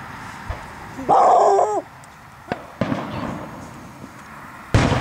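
Aerial fireworks going off: a few sharp pops, then a loud boom from a shell burst near the end. About a second in, a short, loud pitched cry that falls at its end.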